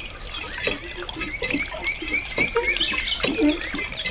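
Thin stream of water falling from a small pipe onto a chute and into a shallow model pond, trickling and splashing with irregular little plops.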